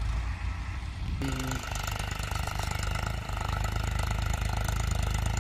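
Powertrac Euro 50 tractor's diesel engine running steadily under load while pulling a cultivator through the field. About a second in the sound becomes fuller and brighter and holds there.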